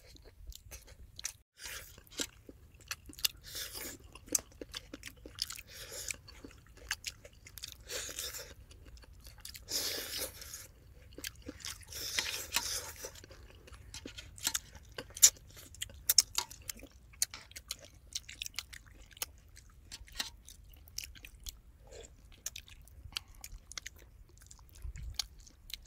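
People chewing and biting into fried catfish: a run of wet mouth clicks and crunches, with a few longer, louder mouthfuls around the middle.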